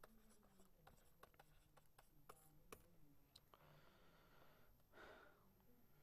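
Near silence, broken by faint taps and short scratches of a stylus writing on a tablet.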